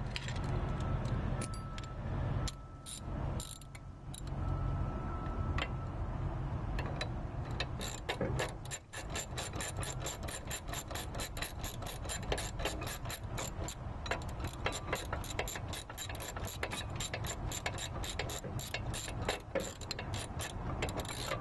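Ratchet socket wrench clicking on the brake caliper bracket bolts: a few scattered clicks at first, then a steady rapid run of clicks from a little over a third of the way in. The socket is a size too big, so it keeps going around on the bolt head without tightening it.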